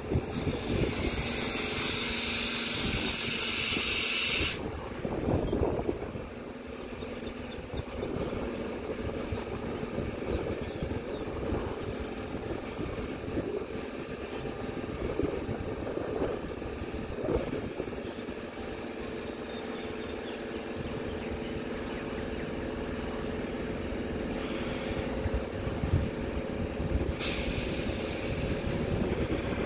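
Sydney Trains Tangara electric train standing at the platform: a loud hiss of compressed air from its brake system lasts about three and a half seconds and cuts off sharply, then the train's onboard equipment hums steadily. A second air hiss starts near the end as the brakes release.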